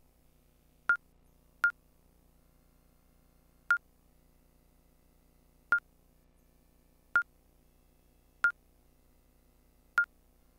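Electronic soft-tip dart machine beeping as its menu buttons are pressed to select the next game: seven short beeps, all at the same pitch, at uneven intervals.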